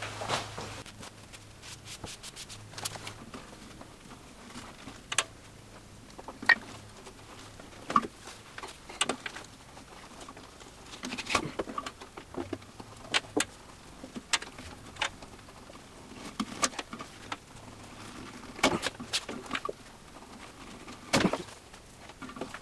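Scattered clicks, knocks and rubbing as hands work a new rubber tire onto the lower wheel of a Grizzly G0513X2 17-inch bandsaw, with a few sharper knocks, the loudest near the end.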